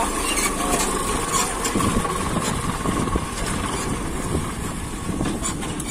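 A motorcycle engine running steadily.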